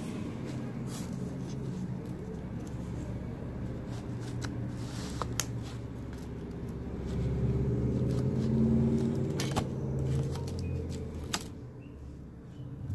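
Paper and clear sticky tape being handled: rustling with a few sharp clicks and crackles. Under it runs a steady low rumble that grows louder about halfway through.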